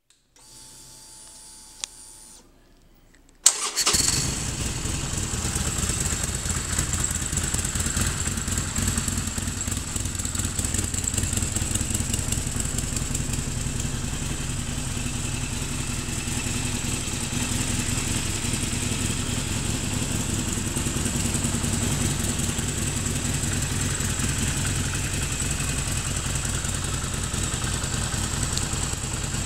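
2019 Harley-Davidson Sportster Iron 1200's air-cooled 1200 cc V-twin engine started after a faint whirr and a click. It catches about three and a half seconds in, then settles into a steady idle.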